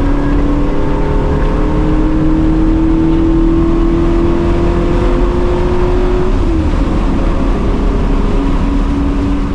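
Fourth-generation Pontiac Firebird's V8 engine at full throttle, its pitch climbing steadily as it pulls through a gear, then dropping sharply with an upshift about six and a half seconds in before pulling again at lower revs.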